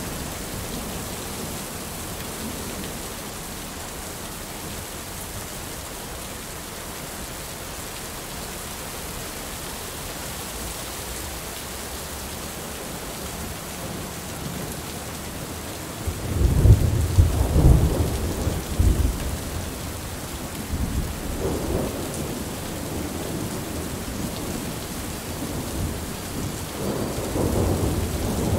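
Heavy rain falling in a steady hiss, with thunder: a loud low rumble breaks in suddenly a little past halfway and rolls for a few seconds. Softer rumbles follow, building again near the end.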